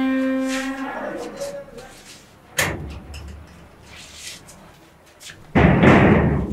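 A bang on a large sheet-metal gate about two and a half seconds in, then a louder, longer clattering bang near the end. A voice calls out in a long held note at the start.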